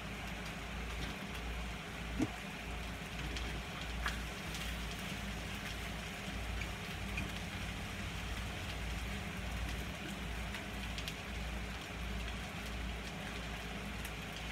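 Cooking oil sizzling steadily in a small skillet as corn tortillas fry, with a couple of sharp clicks from the tongs about two and four seconds in.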